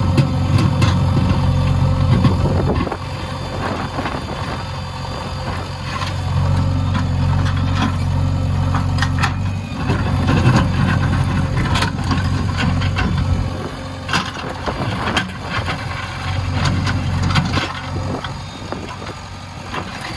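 Backhoe loader's diesel engine running, its strength swelling and easing every few seconds as the machine works, with scattered knocks and rattles.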